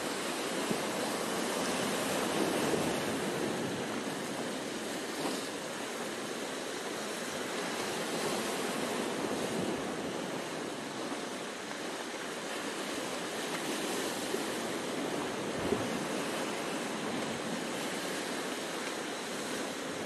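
Sea surf breaking and washing around offshore rocks: a steady rushing wash of waves.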